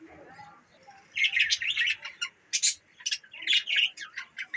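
Budgerigars chirping and warbling in quick, high bursts, after a brief lull at the start.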